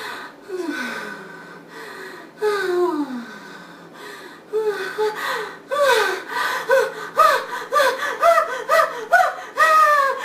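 A woman's wordless voice into a studio microphone: two long downward swoops, then a quick run of short, bouncing staccato notes, about three a second, to the end.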